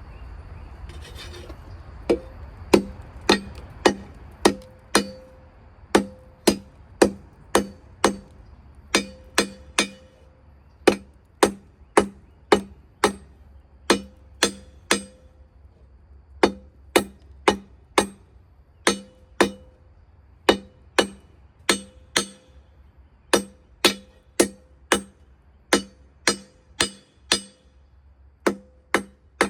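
Hand hammer striking a knife blade on an anvil, forging it: a steady rhythm of about two ringing blows a second, in runs of several strikes with short pauses between, starting about two seconds in.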